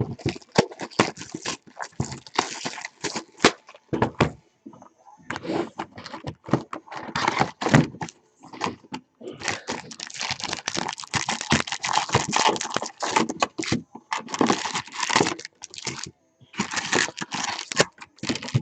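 Plastic wrapping and cardboard being torn open and crinkled by hand as a sealed box of trading cards is unwrapped, a dense run of crackling and rustling with short pauses.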